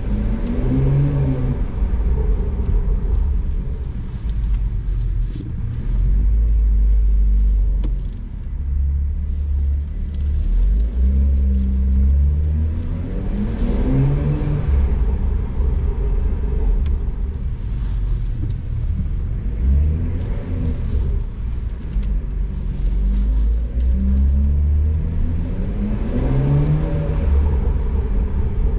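BMW 340i's B58 turbocharged straight-six, decatted and Stage 2+ tuned, driving under a heavy low rumble. The engine note rises three times, about twelve seconds apart, as the car accelerates.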